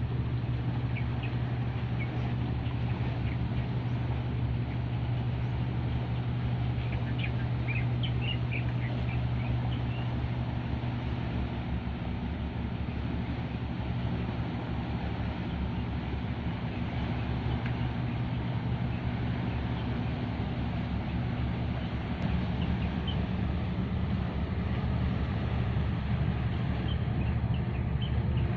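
Steady low drone of a passing LPG tanker's diesel engine, with short bird chirps over it near the start, about a third of the way in, and near the end.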